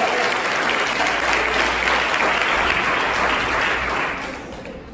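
Congregation applauding, a dense steady clapping that fades away near the end.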